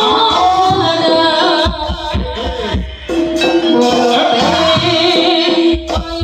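Music accompanying a Javanese jaranan (hobby-horse trance dance): a gamelan ensemble with hand drums plays steadily under a singing voice.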